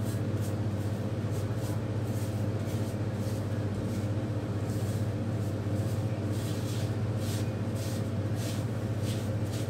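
A steady low hum runs throughout, with short soft swishes over it, about one or two a second, from hands rubbing a small dog's wet fur, more of them in the second half.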